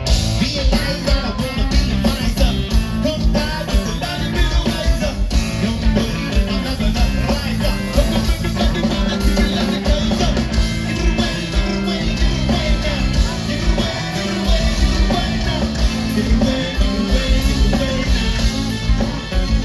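Live rock band playing loud, with a steady drum beat, bass, electric guitar and singing.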